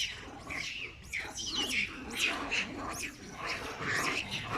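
A young monkey crying in a quick string of short, high-pitched, bird-like calls, several a second, each sweeping quickly in pitch: the distress cries of a frightened baby monkey.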